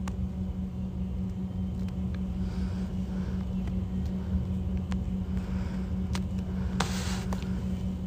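Steady low hum over a rough rumble, with a few faint clicks and a short burst of noise about seven seconds in.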